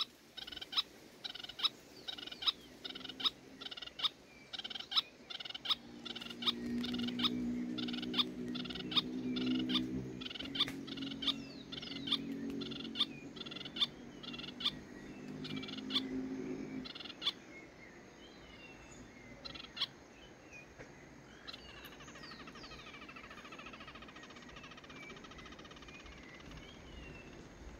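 Spix's spinetail (João-teneném) calling: a long, steady run of sharp, high notes, two to three a second, which stops about two-thirds of the way through. Under the middle part runs a low, steady hum. Near the end only a few faint gliding chirps of other birds remain.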